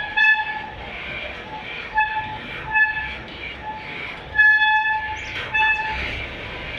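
Shimano Deore M6000 hydraulic disc brake honking in a series of short, steady-pitched hoots, the longest and loudest a little past the middle. The owner takes the honk for oil-contaminated pads and rotor.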